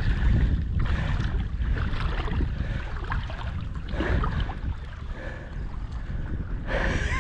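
Wind rumbling on the microphone over water sloshing as someone wades through shallow water.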